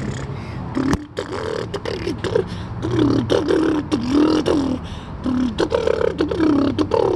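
Wordless vocal sounds from a person: short pitched hums and glides that rise and fall, broken by mouth clicks, over a steady low hum.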